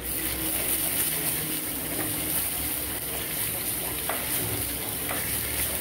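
Onion, ginger and garlic paste frying in oil in a pot, a steady sizzle, while a wooden spatula stirs it, with a few light clicks of the spatula against the pot.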